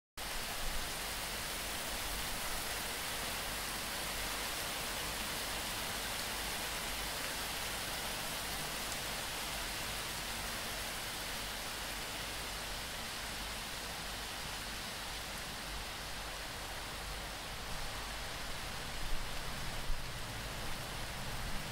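Hailstorm: hail and rain falling in a steady, even hiss, with a few louder knocks near the end.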